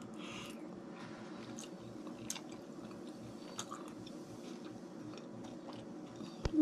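Close-up mouth sounds of someone chewing a baked escargot (snail), with soft wet clicks and crunches over a steady low hum. A sharp knock comes near the end.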